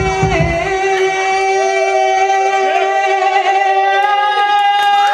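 Hip-hop backing music playing loud over a club sound system: the beat's low kick thumps stop about half a second in, leaving one long steady held note, with voices faintly rising and falling over it.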